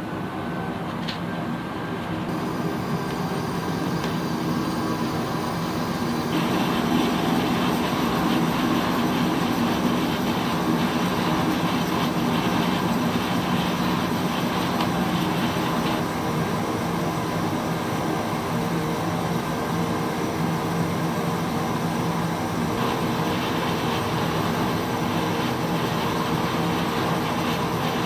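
Paseco window-type air conditioner running on fan speed 1: its compressor and fan make a steady mechanical drone with several humming tones, growing louder over the first several seconds. This is the loud noise the unit makes after it is switched on, while the compressor runs and it works to evaporate its condensate water, before it settles.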